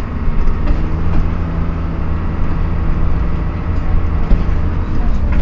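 Dennis Dart single-deck bus under way: the engine drones with a low rumble, and a steady gear whine runs over it, easing off about four and a half seconds in.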